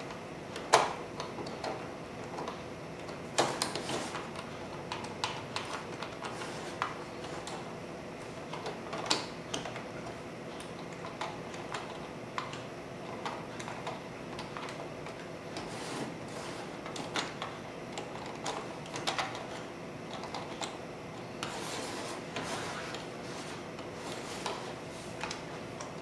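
Plastic Lego pieces clicking and knocking at irregular intervals as hands push, slide and turn the parts of a Lego puzzle box on a wooden tabletop, working its locking mechanism to open it.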